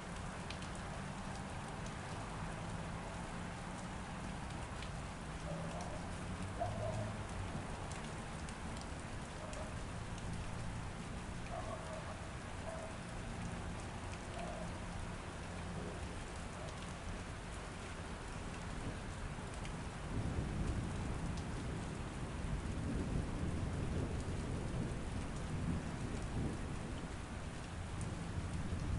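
Steady rainfall with low rolling thunder. The rumble swells and grows louder about two-thirds of the way through.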